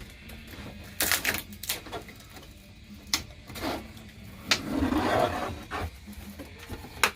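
Ceiling material being torn out of an RV: several sharp knocks and cracks as panel pieces are pried loose, with a stretch of rustling, crumbling debris about five seconds in.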